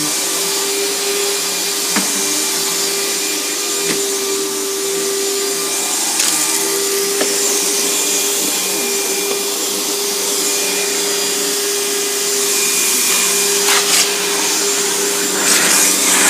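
Riccar 100 bagged vacuum cleaner running steadily while vacuuming, a constant motor whine over the hiss of its airflow. A few light clicks come through, and near the end it rattles and rubs more as it moves over the floor.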